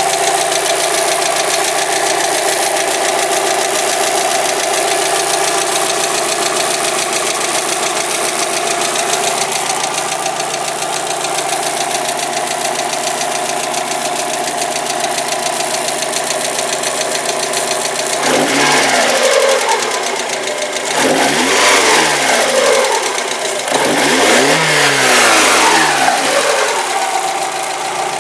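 1992 Mazda Miata's 1.6-litre four-cylinder engine idling with a ticking/knocking noise, revved up and let fall back three times in the last third. The owner's father takes the knock as a sign the engine needs replacing.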